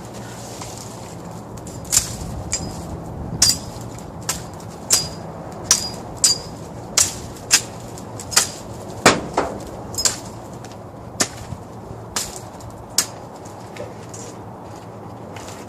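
Small cherry limbs being whacked and broken apart by hand: a run of sharp cracks about every half to three-quarters of a second, some with a brief high ring after them.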